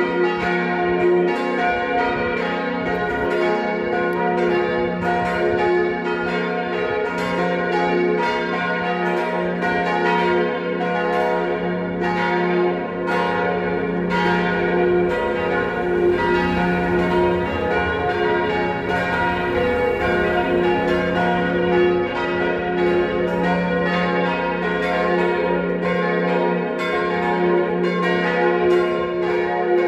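Church tower bells, a four-bell set tuned C5, B-flat 4, A-flat 4 and F4, swinging and ringing together in a continuous peal, their strikes overlapping over a steady hum of sustained tones.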